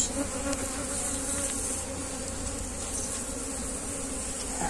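Honey bees buzzing with a steady hum over an open hive box as a frame is lifted out.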